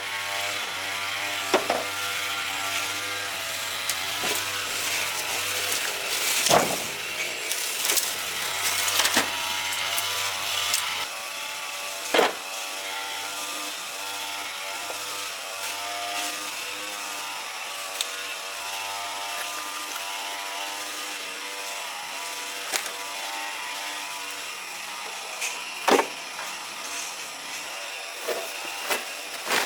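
A small motor running steadily, with a few sharp knocks, the loudest about six and a half, twelve and twenty-six seconds in.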